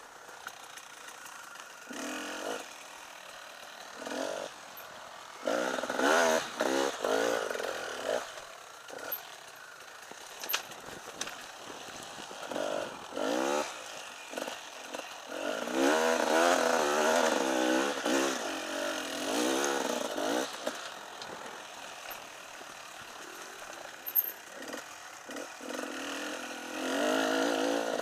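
Enduro motorcycle engine revving up and down in repeated bursts as the throttle is opened and closed, the loudest and longest burst in the second half. A sharp knock comes late on.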